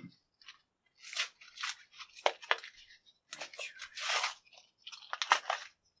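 Plastic blister packaging crinkling and tearing as it is pulled apart to free a small padlock, in several crackling bursts with a few sharp snaps.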